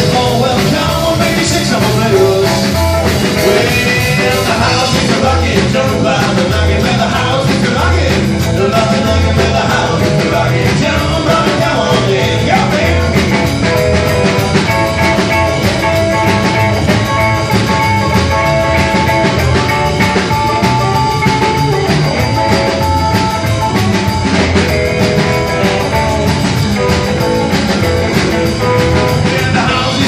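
Live rockabilly played by a trio of electric guitar, upright double bass and drum kit, with a steady beat.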